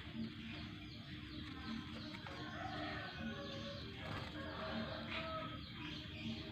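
Yellow-vented bulbul (trucukan) singing busily among dense chirping from other birds, with short low notes recurring every second or so underneath.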